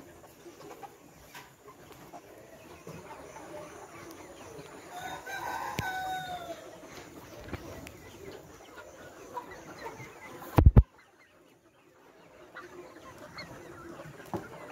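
Flock of 12-week-old layer pullets clucking, with one long rooster crow about five seconds in that falls in pitch at its end. A loud thump comes near the end, and the sound then cuts out for about a second.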